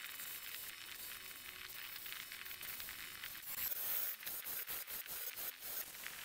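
A thin pink ivory spindle turning on a wood lathe while a turning tool cuts and scrapes it, a steady hiss. Between about three and a half and five and a half seconds in comes a run of quick, sharp scratching strokes.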